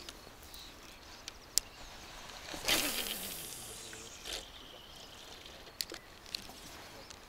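A cast with a spinning rod and reel: a sharp swish as the rod whips forward and line hisses off the reel's spool, falling in pitch as the spinner flies out. A short splash-like sound follows about a second and a half later as the lure lands, then a few sharp clicks from the reel near the end.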